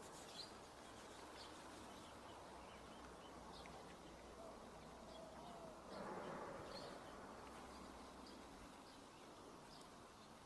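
Near silence: faint outdoor background hiss with scattered short, high chirps, like distant birds or insects.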